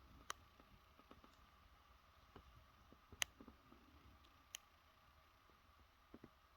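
Near silence with a few faint, sharp clicks spread across it, the clearest a little over three seconds in.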